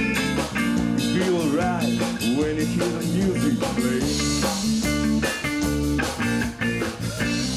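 Blues music played by a band: a guitar lead with bent, sliding notes over bass and drums.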